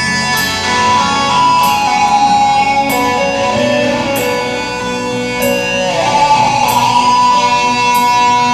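Live band playing an instrumental passage: electric keyboard and guitar over bass and drums, with a steady beat.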